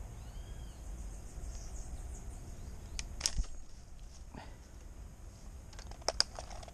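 Outdoor riverside ambience: a steady high insect drone, a short rising-and-falling call near the start, and several sharp clicks and knocks, the loudest about three seconds in and a quick cluster near the end.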